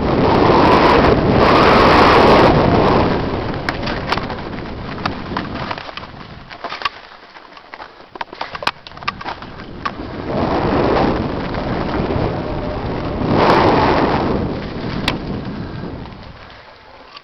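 Wind buffeting a helmet-camera microphone on a fast mountain-bike descent, with the tyres crunching over dirt and loose stones and the bike rattling in sharp clicks. The rush swells with speed, dies down about six to nine seconds in, then rises again twice.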